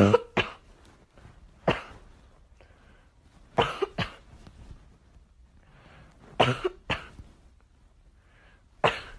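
Coughing: a cough or two every couple of seconds, some coming in quick clusters of two or three.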